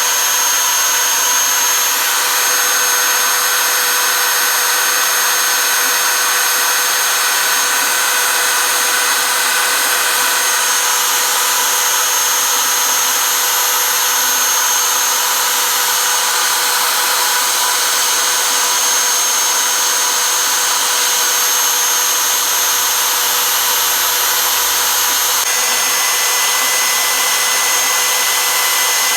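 BobsCNC E4 CNC router running, its router spindle giving a steady high whine over a dense hiss as a V-bit recuts star shapes in plywood. Its tones shift slightly about ten seconds in and again near the end.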